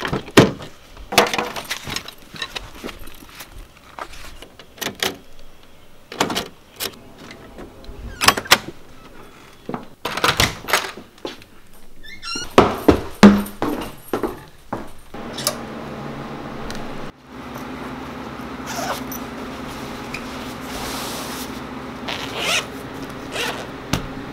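A car door being opened by its outside handle, then a run of clicks, knocks and door sounds. From about two-thirds of the way in, a steady low hum sits under the occasional knock.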